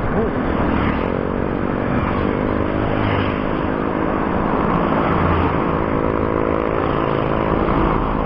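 A motor vehicle's engine drones steadily from about a second in, over a low rush of wind on the microphone while riding.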